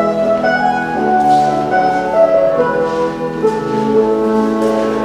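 A clarinet, piano and mandolin trio playing an English country dance tune from around 1700, the melody moving in held notes over the accompaniment.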